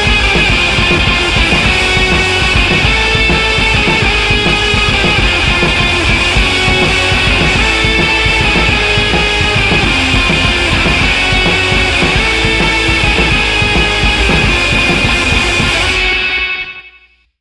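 Background music with a fast drum beat, fading out to silence near the end.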